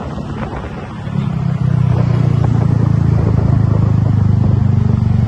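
Bus engine running with a low, steady drone that grows louder about a second in and then holds.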